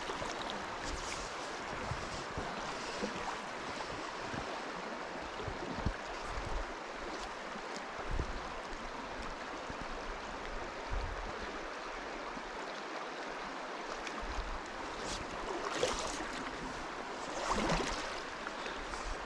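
Penns Creek's current running steadily over a riffle, an even rushing of water, with a few soft low bumps and a slightly louder swell or two near the end.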